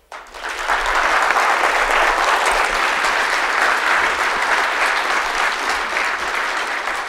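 Audience applauding, the clapping swelling within the first second and then holding steady.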